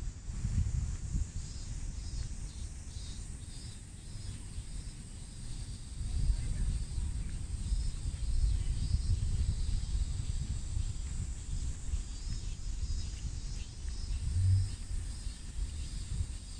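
Outdoor street ambience: a steady low rumble, with a faint high flickering buzz above it and a brief low hum about three-quarters of the way through.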